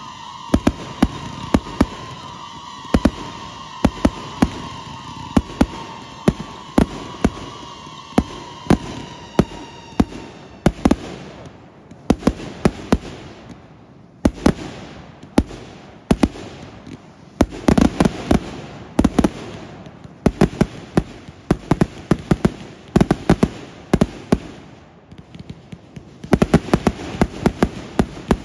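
Fireworks going off in a dense barrage of sharp bangs, several a second, with crackling between them. A high whistling tone slowly falls in pitch and fades out about ten seconds in. The bangs thin briefly near the end, then come thick again.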